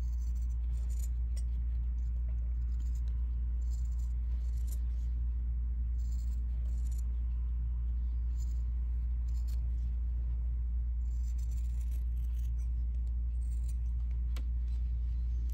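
Scissors snipping notches into the seam allowance of a stitched fabric piece: a string of short, irregularly spaced snips. A steady low hum runs underneath.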